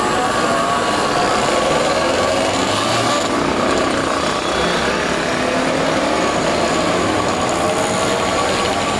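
Several mopeds and small motorcycles riding past at low speed, their small engines running together with overlapping pitches that rise and fall as the riders rev.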